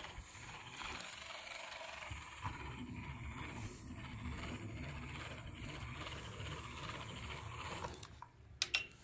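A small electric toy's motor and plastic gears running with a steady whirring rattle. It stops about eight seconds in, followed by a couple of sharp clicks.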